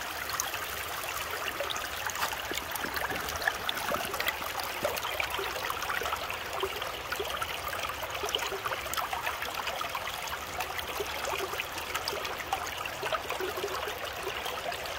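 River water running steadily through an aluminium sluice box and over its riffle mat, a continuous rushing, trickling flow with faint small ticks of sand and gravel washing down the box.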